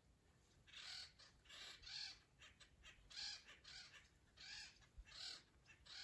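Faint, repeated cawing of a crow: about eight short, harsh calls spread over a few seconds, some coming in quick pairs.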